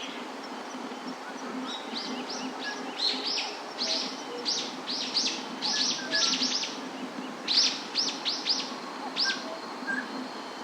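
A bird calling in a rapid series of short, sharp chirps, each dropping quickly in pitch, starting about two seconds in and coming in two runs with a brief pause, over a steady low background hum.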